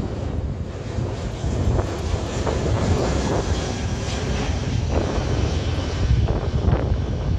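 Airbus A321 airliner passing low overhead on approach with its landing gear down: a steady jet engine rumble.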